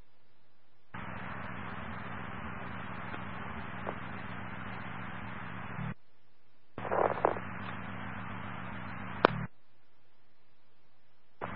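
Two-way radio dispatch channel heard through a scanner. An open transmission of static hiss runs for about five seconds with no voice. After a short gap, a second keyed transmission carries a brief, unclear voice fragment and ends with a sharp click, all over a steady low hum.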